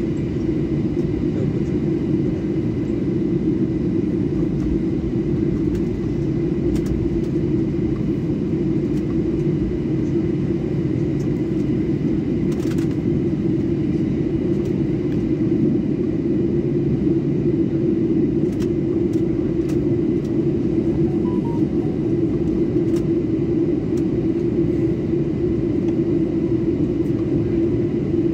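Steady cabin rumble of a Boeing 737-800 taxiing after landing, its CFM56-7B engines at idle, heard from inside the cabin over the wing.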